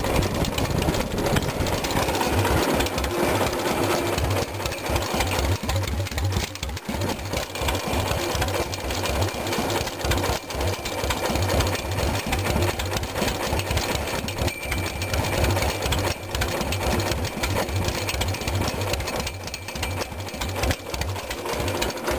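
John Deere L tractor's two-cylinder engine running at low idle, with a steady, even low chugging.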